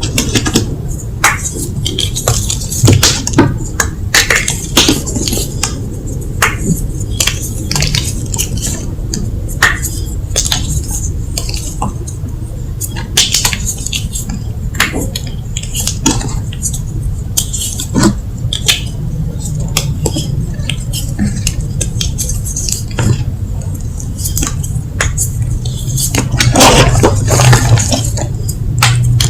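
Blocks of gym chalk being crushed and crumbled, giving a continuous run of irregular crunches and sharp crackles, with a louder stretch of crunching near the end.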